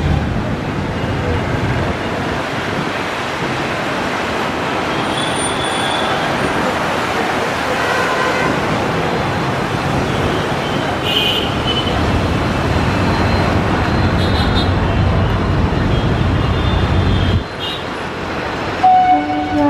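WDP4D diesel locomotives, with 16-cylinder two-stroke EMD engines, running with a steady low rumble as they haul a passenger train. Near the end the rumble cuts off and a horn begins to sound.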